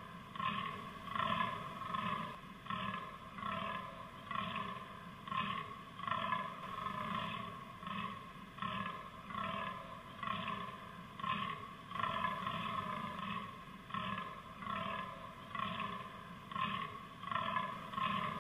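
Fallow deer buck groaning in the rut: a long, regular series of hoarse groans, roughly one a second, each a short pulse that repeats without a break.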